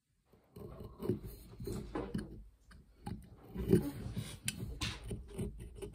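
Carved poplar lure blank being handled and worked on a wooden table: irregular knocks, taps and scrapes of wood on wood, starting about half a second in, with the sharpest knock near the middle.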